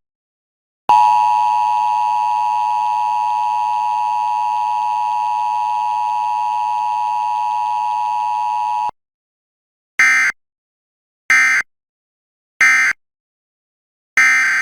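Emergency Alert System tones: the two-tone attention signal sounds steadily for about eight seconds, then the three short data bursts of the end-of-message code follow, evenly spaced about a second apart. Near the end a longer data burst begins, the header of the next alert.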